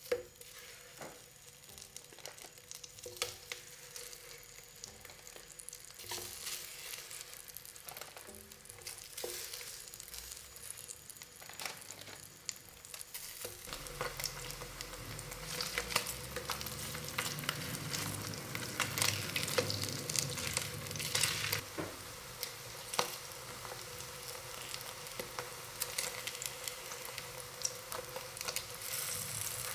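Slices of Spam sizzling in hot oil in a pan, with many small pops and crackles, getting louder from about halfway through. There is a sharp tap right at the start as a slice is laid in with chopsticks.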